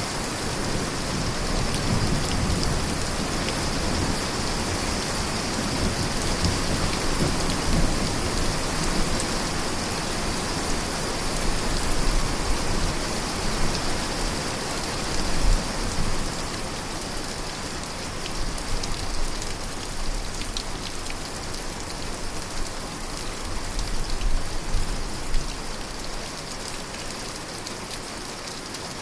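Steady rain falling, with a low rumble of thunder in the first half that fades out.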